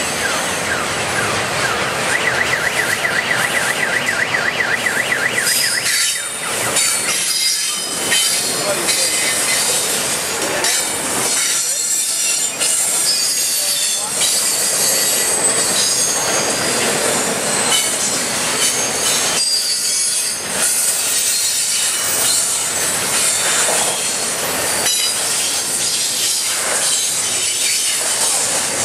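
Union Pacific double-stack intermodal freight train passing at about 40–45 mph: the container cars' wheels run steadily over the rails with high-pitched wheel squeal. For about the first six seconds a truck alarm sounds a rapid warbling tone, set off by the passing train.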